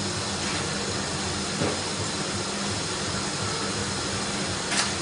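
Steady hiss of food cooking on the stovetop, with a couple of faint knocks.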